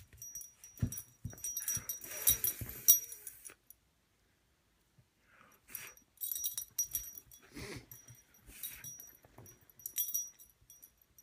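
A dog making small vocal and breathing noises and moving about, in short irregular bursts, with a pause of about a second and a half around four seconds in.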